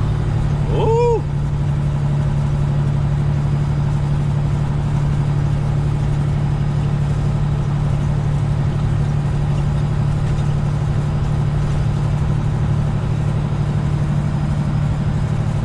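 Semi truck's diesel engine droning steadily, heard inside the cab while cruising. About a second in there is one brief chirp that rises and falls in pitch.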